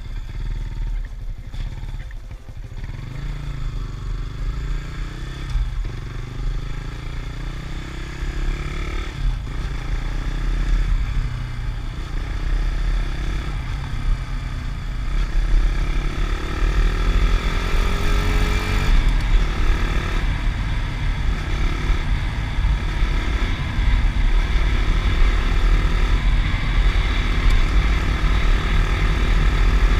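Yamaha Sniper 150 underbone motorcycle, its single-cylinder four-stroke engine running under way and pulling up through the gears. The pitch rises and drops back several times at the shifts, then holds higher and louder as speed builds.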